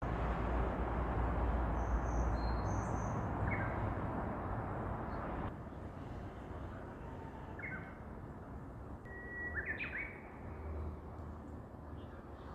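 Japanese bush warbler singing: scattered short notes, then a little before ten seconds in a long held whistle running into the quick up-and-down 'hokekyo' phrase. A steady rushing noise lies beneath and drops off about five and a half seconds in.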